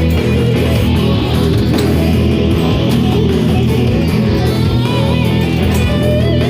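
Electric guitar played as a right-hand picking warm-up exercise, with a few bent notes near the end.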